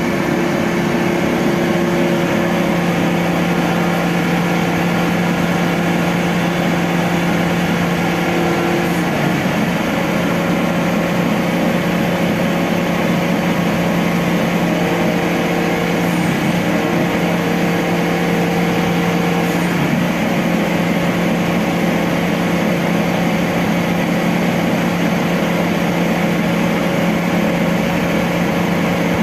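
Truck-mounted mobile crane's diesel engine running steadily close by, holding a steady pitch that shifts slightly a few times.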